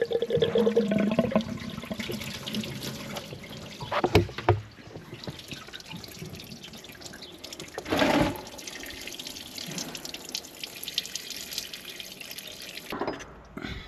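Engine coolant trickling and dripping from a 1.2-litre gasoline engine as its water pump is pulled off. A few knocks of metal parts come about 4, 8 and 13 seconds in, and a brief whine sounds at the start.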